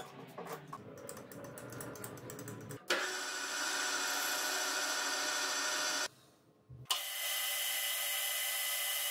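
Light clicks and knocks as a plastic rod is set in a metal lathe's three-jaw chuck. Then the lathe starts abruptly and runs steadily, its motor and gears giving a whine of several steady tones while it turns and drills the rod. The running sound cuts out for under a second near the middle and comes back just as suddenly.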